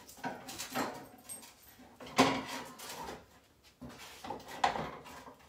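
Steel tube sections of a roof basket being handled and slid together on a table, giving several knocks and scrapes, the loudest a sharp knock about two seconds in.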